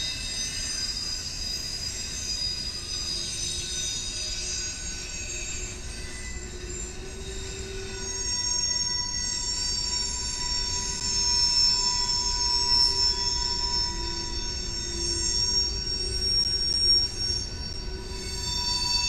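Freight train rolling past, its wheels squealing on the rails in several high, wavering tones over a low rumble, growing louder about halfway through.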